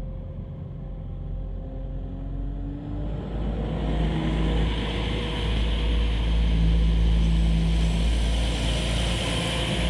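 Class 172/0 Turbostar diesel multiple unit pulling away from the platform. Its diesel engines grow louder and their note climbs in steps as the train picks up speed.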